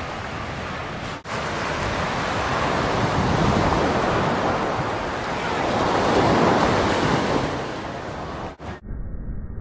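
Ocean surf washing onto a sandy beach, swelling louder twice, with wind on the microphone.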